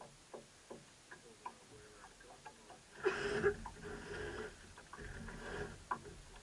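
Faint irregular clicking, as of a fishing reel being wound, with two louder bursts of noise about three and five seconds in.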